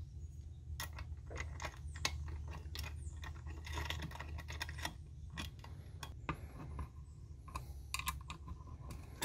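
Small metal screws clicking and clinking as they are handled and turned in with an Allen key, fastening a bracket onto an aluminium LED light bar housing. Irregular light clicks over a faint low hum.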